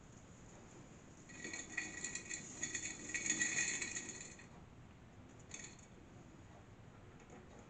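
Grains of dehydrated cooked rice rattling and pinging into a glass clip-top jar as they are shaken off a flexed mesh dehydrator sheet, for about three seconds starting a second in, with a brief second rattle a little later.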